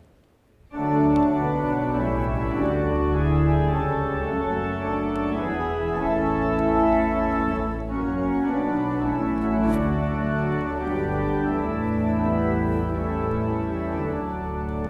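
Church organ playing the introduction to a hymn in held chords, starting about a second in.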